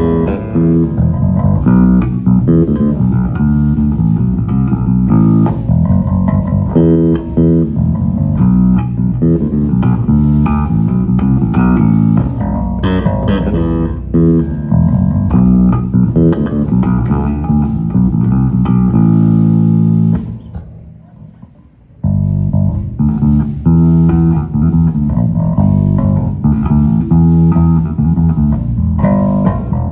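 Wolf S7-7 seven-string bass with year-old Kalium strings tuned low F# to high C, played solo through a Phil Jones Bass M-500 amp and two 9B cabinets with the EQ flat and no compression. It plays a run of plucked notes. About two-thirds through, a held note rings out and dies away almost to silence for a second or two before the playing starts again.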